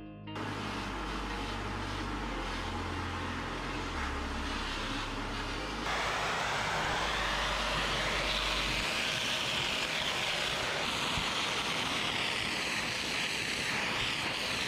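A loud, steady rushing noise starts abruptly, gets louder about six seconds in, and cuts off abruptly at the end. Low bass notes of background music run under its first half.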